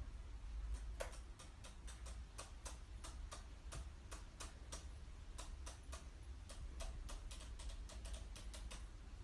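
Pigeon pecking at a laptop keyboard: sharp, irregular clicks of beak on plastic keys, about three or four a second.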